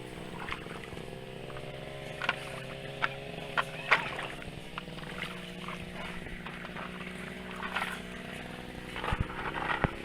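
Small toy bulldozer motor running steadily, with a few sharp clacks and knocks, the loudest about four seconds in and another cluster near the end.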